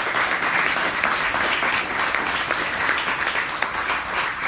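A congregation applauding, with steady clapping.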